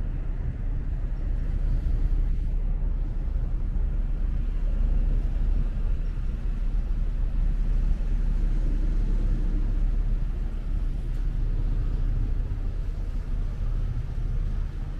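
Steady low rumble of a ferry's engines, even in level throughout.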